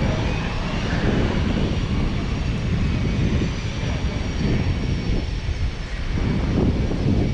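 Jet engines running: a steady, rumbling roar with a thin high whine over it, getting louder near the end.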